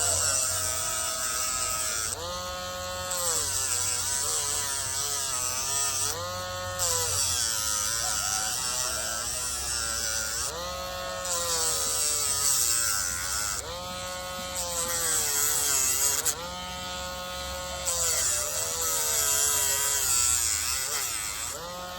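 Dremel rotary tool grinding down a rooster's spur in short passes. The motor whine sags under load with a grinding hiss, then briefly rises in pitch each time the tool is lifted off, about every four seconds.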